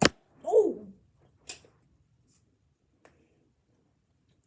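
Nerf blaster fired once, a sharp snap at the start, followed about a second and a half later by a lighter tap and a faint tick near the end.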